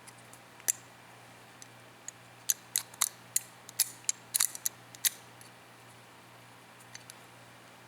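Sharp metallic clicks of AR-15 bolt carrier parts being handled and fitted back together after a gas ring change. One click comes early, then about a dozen quick clicks follow in the middle.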